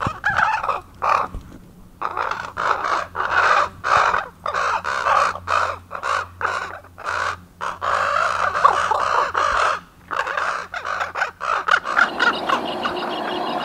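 Common ravens calling, a rapid run of hoarse croaks and caws with short gaps between them. Near the end a steady engine-like hum fades in under the calls.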